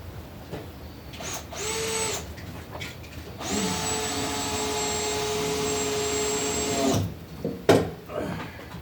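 Power drill running in two bursts, a short one of about half a second and then a steady run of about three and a half seconds, followed by a single sharp knock.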